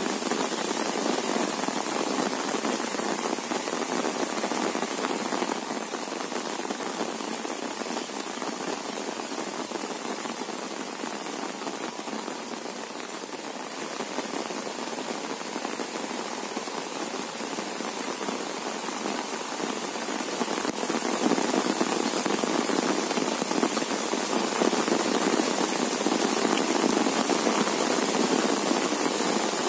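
Steady rain pattering on an open umbrella overhead and on the surrounding rice field. It eases a little for a few seconds in the middle, then grows louder again about two-thirds of the way through.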